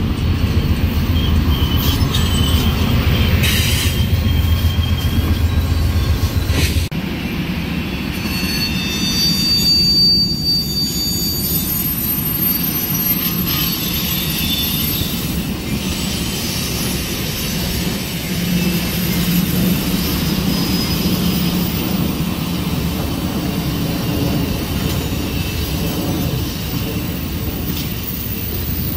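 Amtrak passenger train cars rolling past on the rails with a steady rumble and thin high wheel squeals now and then. A low drone under it cuts off suddenly about seven seconds in.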